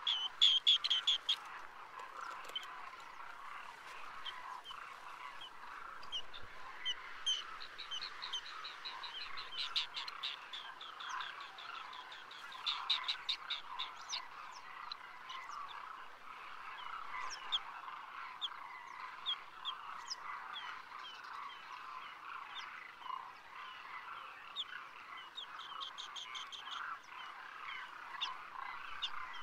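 A steady chorus of croaking frogs, with bursts of rapid, high trilled bird calls over it. The trills are loudest about a second in and again around ten and thirteen seconds in.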